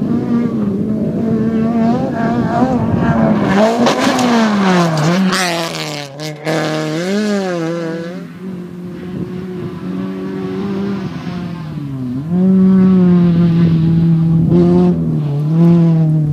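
Toyota GT86 rally car driven hard on gravel, engine revving through the gears. The engine note holds steady at first, dips and climbs several times in the middle as the throttle is lifted and reapplied, then runs louder and steady near the end.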